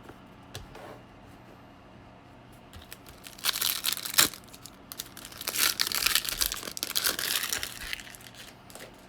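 A trading card pack wrapper being torn open and crinkled, in two spells: a short one about three and a half seconds in, ending in a sharp snap, then a longer one from about five and a half seconds in.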